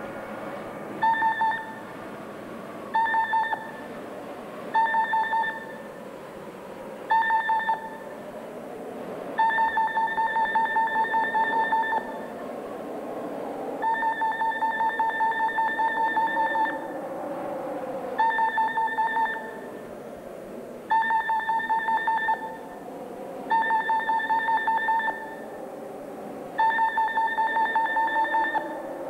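An electronic beeping tone with a buzzy, pulsing edge sounds in bursts over a low wavering drone. Short beeps come about every two seconds at first, then longer ones of one to three seconds each.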